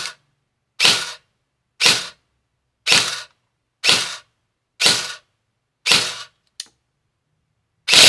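G&G ARP 9 3.0 electric airsoft gun (AEG) firing single semi-auto shots into a chronograph, about one a second, seven sharp snaps of the gearbox cycling. Near the end a loud continuous burst of rapid full-auto fire starts.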